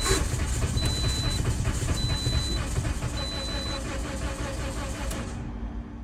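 A Toyota Corolla's four-cylinder engine cranking on the starter for about five seconds without catching, then stopping. It is a no-start: the cylinders are flooded with gasoline, and compression is low in all four, blamed on a failed head gasket.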